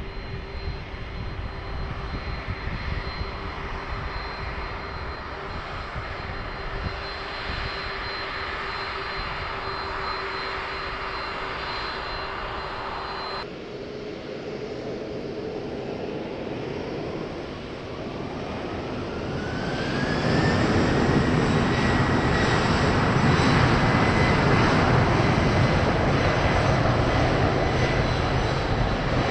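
Jet engines of a Boeing 767: a steady turbofan whine while taxiing, then, after a cut, a rising whine as the engines spool up for takeoff, growing much louder about two-thirds of the way through and holding at full thrust.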